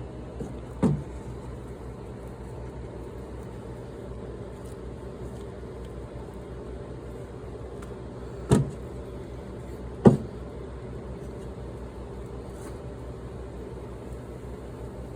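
Steady low workshop hum and hiss, broken by three sharp knocks: one about a second in, then two a second and a half apart later on.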